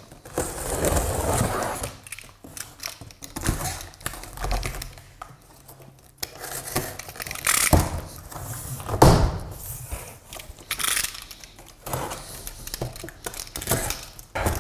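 Box cutter slicing through packing tape on a large cardboard box, with cardboard scraping and rustling and a few sharp knocks against the box, the loudest about nine seconds in.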